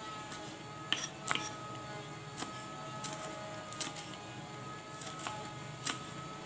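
A steady kitchen hum with a few faint held tones, broken by irregular light clicks and taps as hands work with cooking utensils and ingredients.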